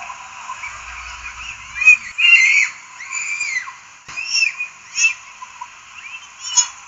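A run of short, high-pitched animal calls, each rising and falling in pitch, about six of them, over a steady hiss. The loudest comes about two seconds in.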